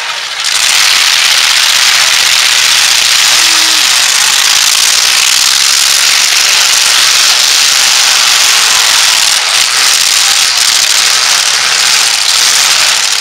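Demolition derby trucks' engines running in the arena, heard as a loud, steady, harsh noise without a break.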